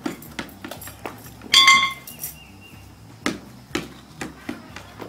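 A red rubber playground ball bounced on concrete in an uneven, stop-start rhythm, several bounces close together, then a pause, then a few more. About one and a half seconds in, a short high-pitched squeak is the loudest sound.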